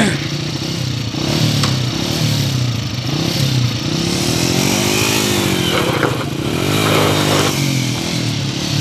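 Small motorcycle engine running while riding, its pitch rising and falling as the throttle opens and closes, over steady wind and road noise.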